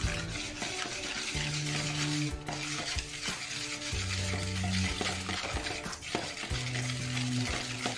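Wire balloon whisk beating egg, sugar and milk powder in a mixing bowl: a continuous scratchy, rapid stirring hiss with light taps of the wires against the bowl. Soft background music with low held notes plays underneath.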